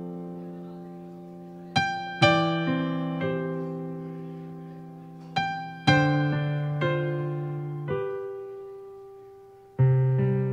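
Added background music: slow, gentle piano chords and single notes, each struck and left to ring and fade before the next.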